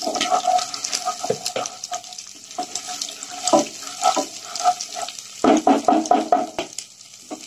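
Onion-and-spice masala sizzling and bubbling in oil in a pot, with a ladle stirring through it and scraping the pot in a run of short strokes near the end.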